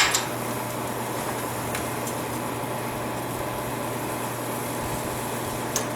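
A steady machine hum with an even rushing noise, and a faint click a little under two seconds in.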